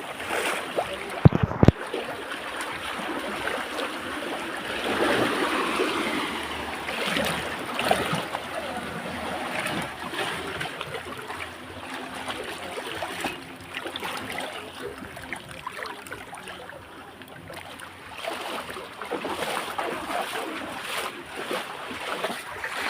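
Sea water surging and washing among rocks in rising and falling swells, with a couple of sharp knocks about a second and a half in.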